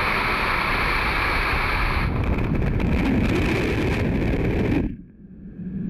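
High-pressure car-wash spray wand blasting water directly onto the camera: a loud, steady hiss that turns rough and crackling about two seconds in, then cuts off suddenly near the end.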